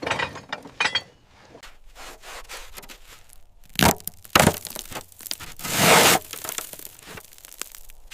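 Crunching and scraping handling noises, with two sharp cracks about four seconds in and a louder rasping scrape around six seconds.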